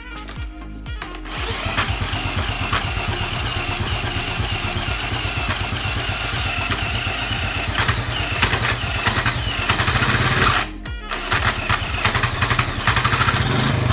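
Honda ATC 70's small four-stroke single-cylinder engine being cranked, catching about a second in and running steadily: its first start after sitting for 15 years, with freshly cleaned ignition points. The engine cuts out briefly about eleven seconds in, then runs again.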